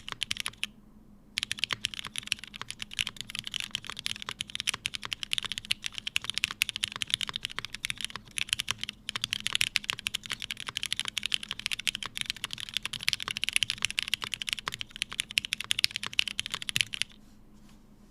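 Typing on an Emery65 65% custom mechanical keyboard with lubed Cherry Hyperglide Black linear switches in an aluminium plate and GMK keycaps. After a few keystrokes and a short pause about a second in, it is fast, continuous typing that stops about a second before the end.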